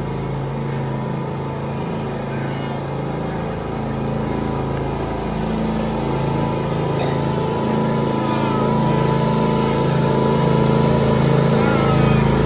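Engines of two John Deere riding lawn tractors running steadily, growing gradually louder as they come closer.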